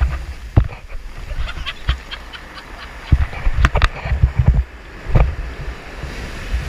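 Sea surf washing among rocks under gusts of wind rumbling on the microphone, with scattered sharp knocks and clicks.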